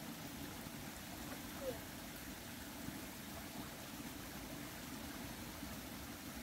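Steady rushing of a small river flowing nearby, with one short chirp about one and a half seconds in.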